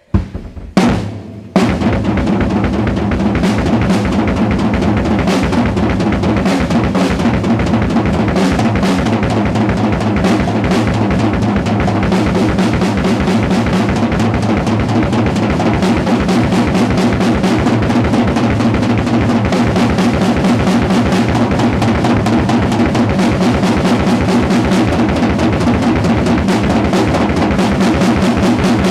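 Acoustic drum kit played solo with sticks: a few separate hits, then from about a second and a half in, a fast, unbroken stream of strokes on the drums and cymbals.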